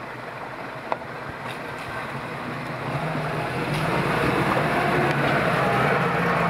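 Off-road vehicle engine running under a steady rushing noise, growing louder from about halfway through.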